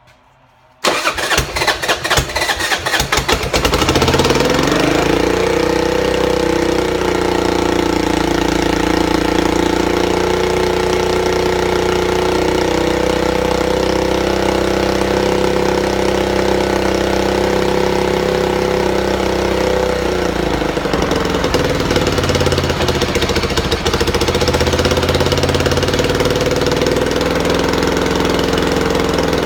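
Buell Blast's single-cylinder engine turning over and firing about a second in, then settling within a few seconds into a steady idle; it runs on a shot of starter fluid, since its faulty auto-enricher choke won't let it start cold otherwise. The idle shifts slightly about twenty seconds in.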